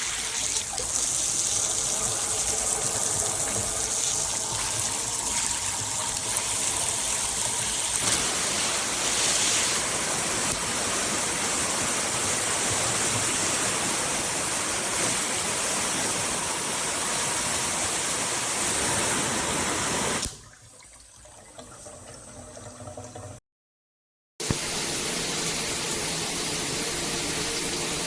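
Water spraying from a multifunction rain shower head, a steady hiss of spray. About twenty seconds in it cuts off abruptly to a much quieter stretch, then a second of silence, and the spray starts again near the end.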